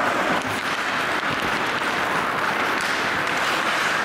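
Ice hockey play: skates scraping across the ice and a few light stick-on-puck taps over a steady rink hiss.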